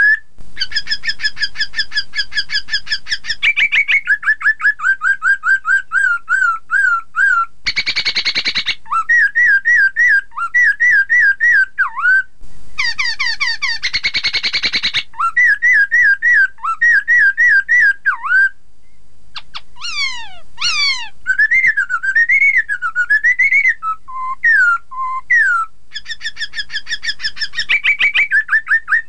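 Black-throated laughingthrush (poksay Mandarin) singing loudly: rapid runs of repeated whistled notes, rising and falling phrases and steep downward whistles. It is broken by two harsh, buzzy stretches about 8 and 14 seconds in, and a short pause around 19 seconds.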